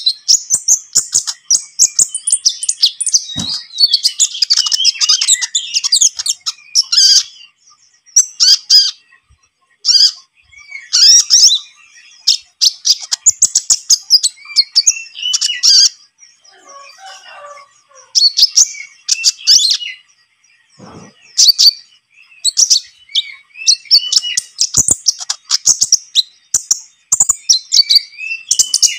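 Konin (brown-throated sunbird) singing: a young male in moult, recorded as a lure song to set other konin singing. Fast, high-pitched twittering and chirping phrases come in bursts separated by short pauses.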